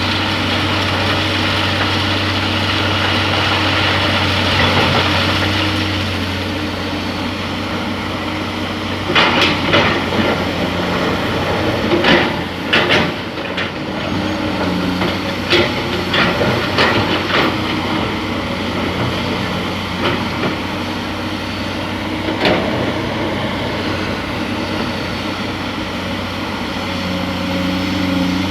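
Heavy diesel machinery running steadily at a sand-loading site, with a run of sharp metallic clanks and knocks through the middle stretch.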